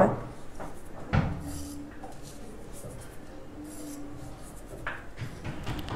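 Fingers sprinkling salt over a bowl of flour: soft rubbing and scraping, with one light knock about a second in.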